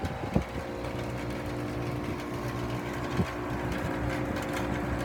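Iced-up 2008 Grand Aire commercial heat pump's outdoor unit running, a steady mechanical hum of compressor and fan with a couple of light knocks. Its outdoor coil is frozen over, which the owner thinks might mean a bad defrost board.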